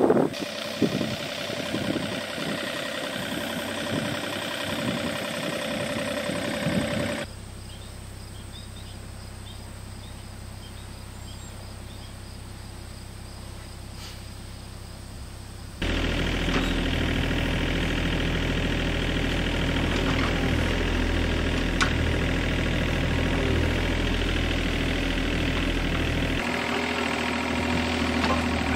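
Mini excavator's diesel engine running steadily while it digs, the loudest sound, from a little past the middle on. Before that, wind buffeting over machine noise, then a quieter stretch with faint chirps.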